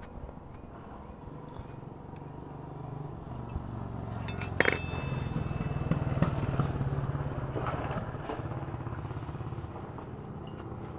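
A motorcycle engine passing by in the background: its low hum swells over a few seconds and then fades. A single sharp metallic clink rings out about four and a half seconds in.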